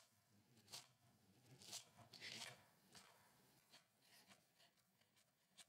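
Faint cuts of a kitchen knife dicing red onion on a wooden cutting board: four or five soft chops and crunchy slices within the first three seconds.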